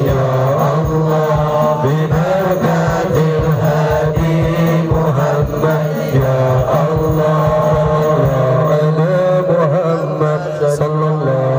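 Shalawat, Islamic devotional praise of the Prophet, sung as a continuous melodic chant with long wavering notes, over a steady low hum.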